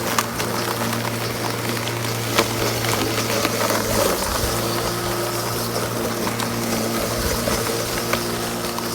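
Bosch CityMower 18 cordless lawnmower running, its motor and blade giving a steady hum over a hiss, with a few sharp ticks. The hum wavers briefly about four seconds in.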